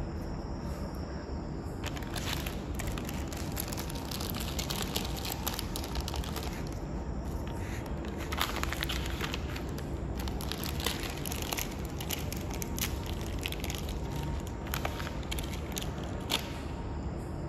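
Crinkling and crackling of a small plastic packet being handled and torn open by hand, in irregular clusters starting about two seconds in, over a steady low background noise.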